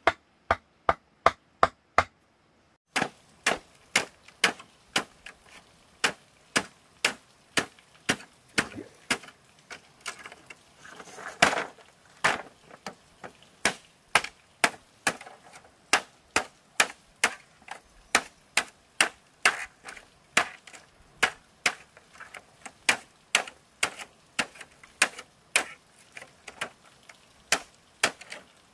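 Steady rhythmic chopping with a blade on a wooden block or board: a quick run of six strokes, a pause of about a second, then about two strokes a second.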